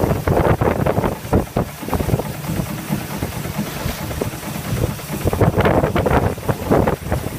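A boat's engine running steadily, with a rapid, regular pulsing beat.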